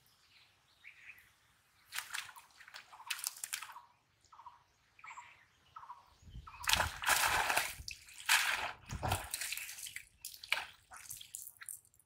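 Water dripping and splashing as a cast net and its rope are hauled in hand over hand from a pond. About six seconds in it grows to a few seconds of loud splashing and sloshing as the net is drawn out of the water.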